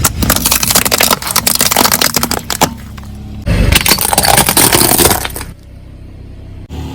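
Car tyres rolling over and crushing brittle objects: a quick run of sharp cracks and crunches, a second heavy crunch about halfway through, then the car's engine running on quietly.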